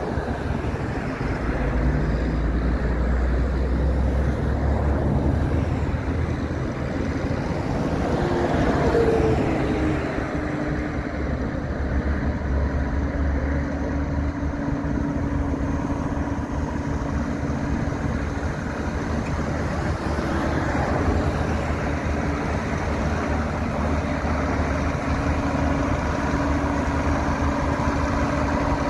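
John Deere 8760 articulated tractor's six-cylinder turbocharged diesel running steadily as it drives slowly across gravel. The engine swells briefly about a third of the way in.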